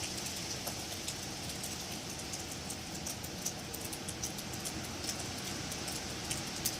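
Wind blowing through trees: a steady rushing of moving foliage, with many small scattered ticks over it.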